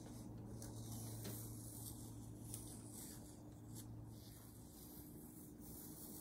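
Faint rubbing and small clicks of fingers working at the edge of masking tape on watercolour paper, over a low steady hum.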